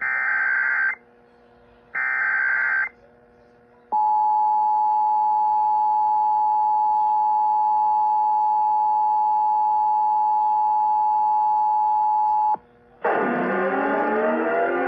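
Emergency Alert System broadcast tones: two one-second bursts of the screeching SAME digital header, a second apart, then the steady two-note 853/960 Hz attention signal for about eight and a half seconds. Music starts near the end with a falling sweep.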